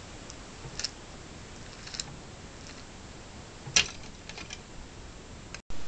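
A few light clicks and taps from handling a cordless screwdriver's planetary gearbox, small plastic gears in a plastic housing, over a steady hiss. The loudest click comes about two-thirds of the way in, and the sound cuts out briefly near the end.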